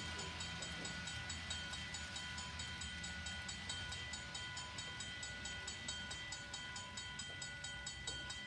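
Model railroad grade-crossing bell ringing in rapid, even strikes, its tones ringing on between strikes, over the low rumble of model train cars running. The bell stops near the end.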